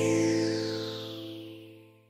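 Background music: held chords with a sweep falling in pitch, fading out steadily over the two seconds.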